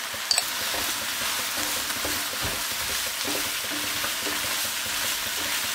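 Sliced mushrooms and onion sizzling steadily in a nonstick frying pan over high heat, stirred with a wooden spatula that scrapes the pan; the high heat keeps the mushrooms searing instead of releasing their water. A short sharp tap sounds just after the start.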